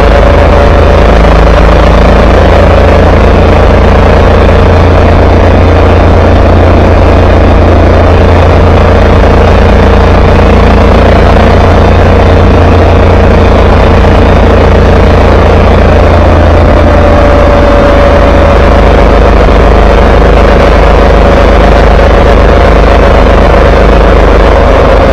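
Motorcycle riding at a steady speed in the rain: a constant engine hum with a slowly wavering tone under heavy wind and road noise, very loud and unbroken.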